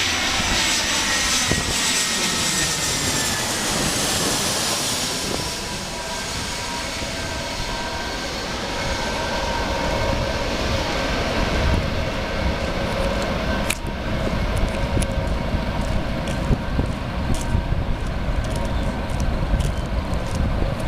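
Jet airliner's engines whining loudly at first, the high-pitched tones falling slightly over the first few seconds, then settling into a steadier, lower rumble. In the second half wind buffets the microphone.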